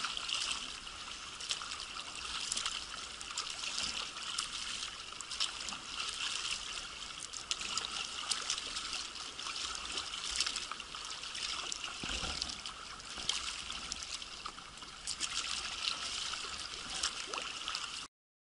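Sea kayak moving through choppy water: a steady splashing and trickling of water along the hull, full of small irregular crackling splashes. It cuts off abruptly near the end.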